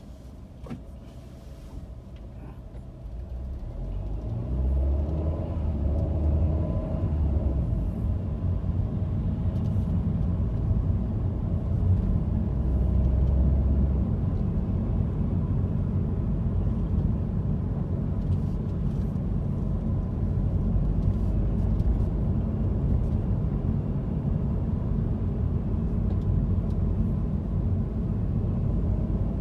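Car engine and road rumble heard from inside the cabin. It is quiet at a standstill; about three seconds in, the engine note rises as the car pulls away, then settles into a steady low rumble of city driving.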